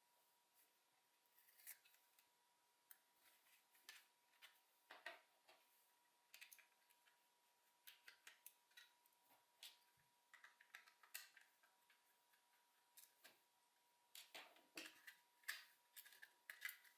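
Small plastic clicks, taps and scrapes at irregular intervals from a Logitech G304 wireless mouse being taken apart, busiest near the end, over a faint steady high tone.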